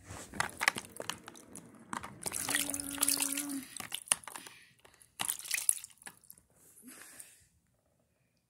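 Water running and splashing as a container is filled, among handling clicks and knocks, with a steady tone held for about a second and a half near the middle; it all stops about a second before the end.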